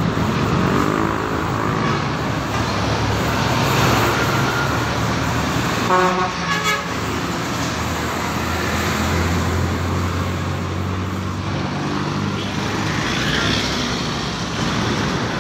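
Street traffic: vehicle engines running and passing, with a short horn toot about six seconds in.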